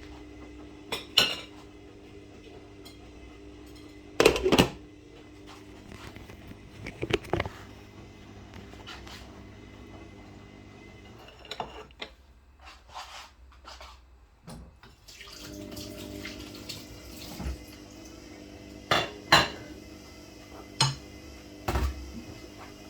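Metal pots and utensils clattering and clinking several times, with sharp knocks about 4 s in and a few more near the end, over a steady low hum.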